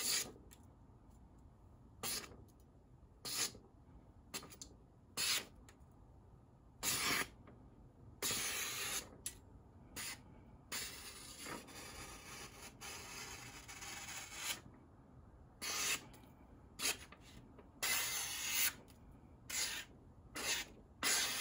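A freshly sharpened kitchen knife slicing through a sheet of paper to test its edge: about a dozen short, hissing cuts, with a longer, quieter run of slicing and paper rustle partway through.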